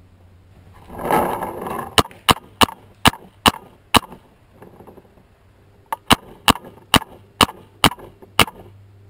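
Paintball marker firing in two quick strings of sharp pops, about six shots and then about seven, roughly two to three a second. A brief burst of broad noise comes about a second in, before the first string.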